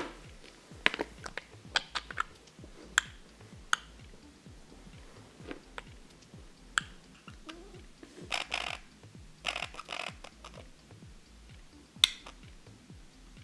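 Budgerigar tapping and clicking on a laminate floor at close range: a string of sharp, separate ticks, with short scratchy stretches about eight and ten seconds in.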